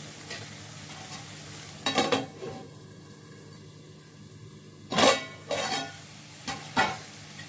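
Egg curry sizzling steadily in a kadai on the stove, with metal utensils clanking against the pan a few times; the loudest clank comes about five seconds in.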